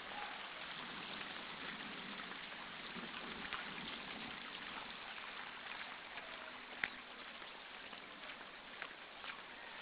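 Muddy rainwater runoff rushing past in a steady flow, with scattered small ticks and one sharper tap about two-thirds of the way through.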